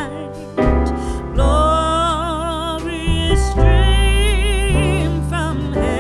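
Background music: a melody of long, wavering held notes over deep bass notes that change every second or two.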